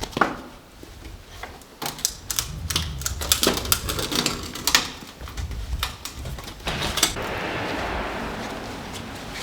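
Rapid, irregular clicks and knocks of hand-tool work, with a steadier rushing sound near the end.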